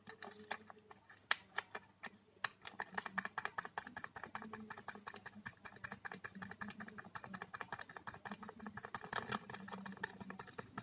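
Fingers tapping quickly and irregularly on a smartphone's touchscreen, close to the phone's microphone.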